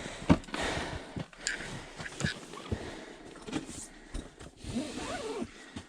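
Handling noise from fishing gear being set into the ice hole: scattered clicks and knocks over rustling, the sharpest knock about a third of a second in.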